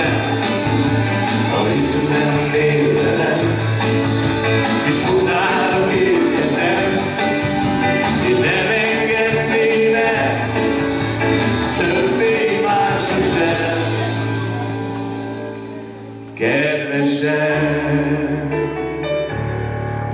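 Live song with keyboard backing and singing. Loudness sinks for a couple of seconds toward the end, then comes back suddenly into a final held chord.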